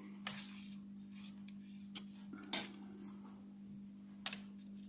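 A handful of small sharp clicks and taps from hands handling a fishing rig and its feeder springs, over a steady low hum.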